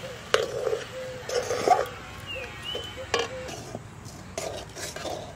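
Metal spatula stirring rice flour into boiling water in a metal karai, scraping and knocking against the pan a few times as the dough is worked.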